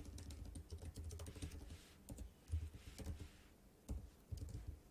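Computer keyboard typing, quiet, in short runs of keystrokes with brief pauses between.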